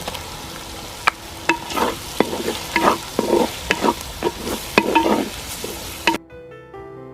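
Onions, green chillies and crushed ginger-garlic sizzling in coconut oil in a large pot while a spoon stirs and scrapes the pot, about a dozen strokes, each with a ringing clink. About six seconds in the sizzle cuts off and music begins.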